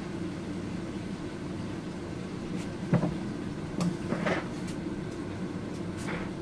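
Steady low hum in a workshop, with a few knocks and clinks of hand tools being moved and set down, the loudest about halfway through.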